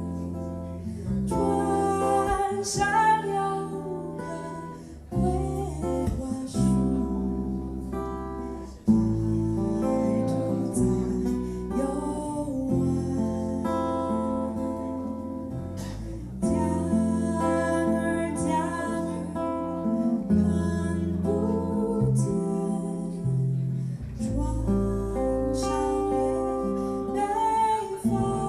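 Live acoustic jazz band playing a slow song: a woman singing with strummed acoustic guitar, acoustic bass and clarinet.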